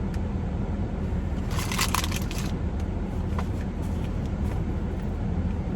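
Steady low hum of a car's air conditioning running. About one and a half seconds in there is a brief crinkling rustle, with a few light clicks later.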